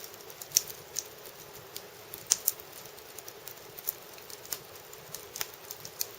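Firewood burning in an irori hearth, crackling with irregular sharp pops, a few of them louder than the rest.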